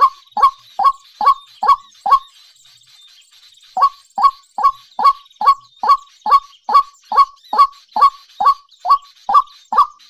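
White-breasted waterhen calling: a loud series of short calls, each dropping in pitch, about two to three a second, with a brief pause after the first five.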